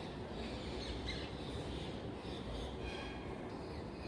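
Birds chirping faintly in the background: short, scattered high chirps over a steady low hiss of room noise.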